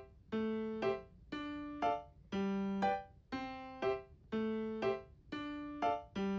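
Background music played on a keyboard: a short figure of one long note followed by two quick notes, repeating about once a second.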